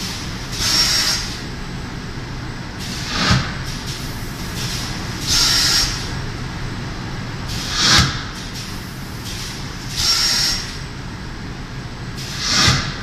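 Paper pulp egg tray forming machine running with a steady mechanical hum, broken by loud bursts of hissing air about every two and a half seconds. The bursts alternate: a short knock with a hiss, then a longer hiss with a high whistle. These are the air blasts of the moulds as the machine cycles.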